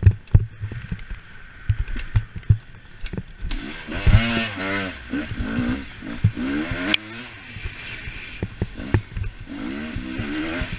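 Dirt bike engine revving up and falling back again and again as the bike is ridden hard over a rough woodland trail, heard from the rider's helmet camera. Short knocks and thuds from the bike hitting bumps run through it.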